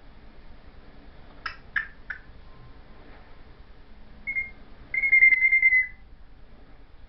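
African grey parrot making three quick clicks, then a short high whistle followed by a louder, steady, beep-like whistled tone held for about a second.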